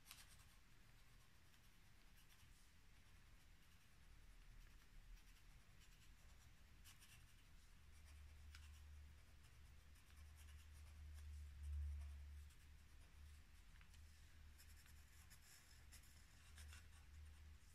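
Faint scratching of a pencil traced firmly over tracing paper, pressing the graphite outline onto black paper beneath. A soft low bump comes about twelve seconds in.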